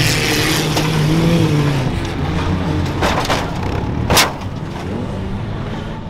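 Banger race car engines running and revving, rising and falling in pitch, with a sharp bang a little after four seconds in and a smaller noisy burst just before it.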